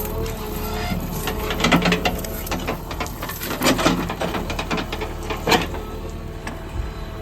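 JCB 3DX backhoe loader's diesel engine running steadily, with several short knocks and scrapes over it, the loudest about two, four and five and a half seconds in.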